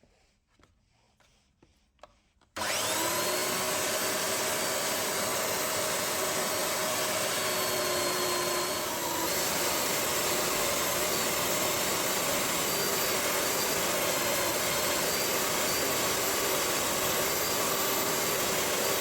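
Electric sander switched on about two and a half seconds in, spinning up and then running with a steady whirring hum, used for fine shaping of the acrylic handle scales of a lock pick. A few faint clicks come before it starts.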